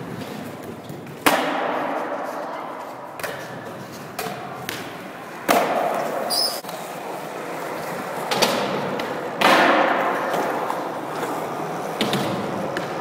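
Skateboard wheels rolling on a smooth skatepark floor, broken by about five hard cracks and clatters of the board: tail pops, landings and the board slapping down, each followed by rolling that fades away.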